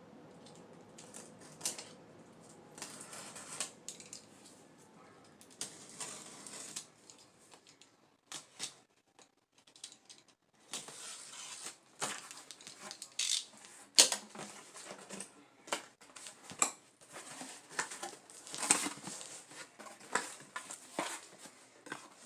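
A cardboard shipping box being opened by hand: stretches of scraping and tearing with many sharp clicks and knocks as the cardboard is handled.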